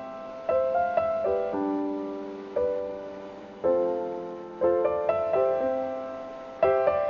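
Slow solo piano music: chords and single notes struck roughly once a second, each left to ring and fade.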